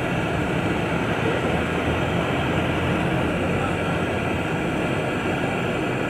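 Flame of a handheld gas torch hissing steadily while brazing a copper suction pipe at a refrigerator compressor.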